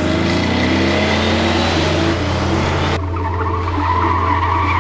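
Air-cooled Porsche engine revving, its pitch rising, over tyre noise; after an abrupt cut about three seconds in, tyres squealing with a wavering pitch.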